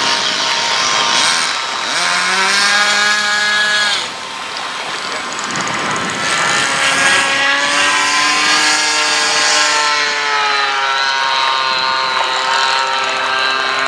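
Brushless electric motor and propeller of a Carbon-Z Cub radio-controlled floatplane whining in flight. The pitch rises and holds, stops abruptly about four seconds in, then comes back about two seconds later and slowly slides down.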